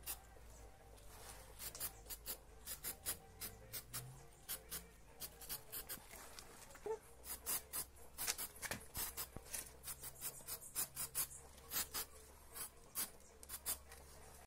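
Aerosol can of heat-resistant paint spraying a first coat onto a brake caliper, in many short, faint hisses at irregular intervals.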